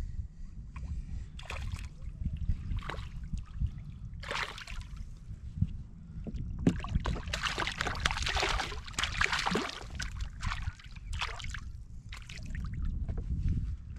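Small hooked perch splashing at the surface beside a kayak as it is reeled in and landed, loudest for a few seconds in the middle, with water sloshing against the hull and a steady low rumble underneath.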